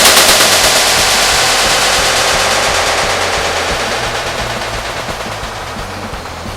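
A rapid string of firecrackers going off: a dense, loud crackle of many small bangs that gradually dies down.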